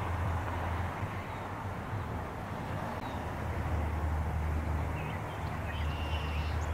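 Steady low rumble of distant jet airliner engines across the airfield, with a few faint high chirps near the end.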